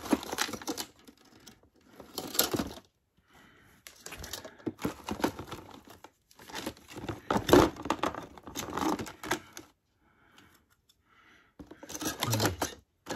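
Hands rummaging through a plastic storage tub: plastic artificial plants and small plastic containers rustling, crinkling and clattering against each other, in several bursts with short pauses between.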